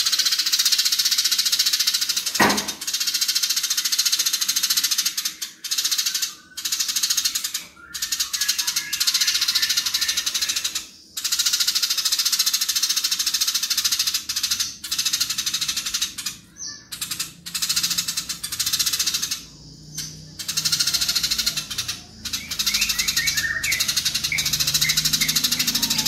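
Eurasian tree sparrows giving their agitated fighting chatter: long, fast, dense runs of harsh chirps, loud and sustained, broken by brief pauses every few seconds.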